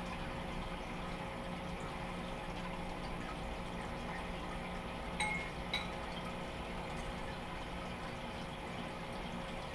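Steady trickling and bubbling of a home aquarium's filter, with a steady hum under it. Two light clinks of cutlery on a bowl about halfway through.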